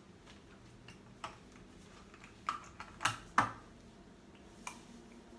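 A few scattered sharp clicks and taps of small plastic toy pieces being handled, loudest a little over three seconds in.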